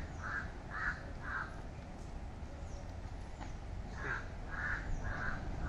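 A crow cawing in two runs of short, evenly spaced caws, the second run starting about four seconds in.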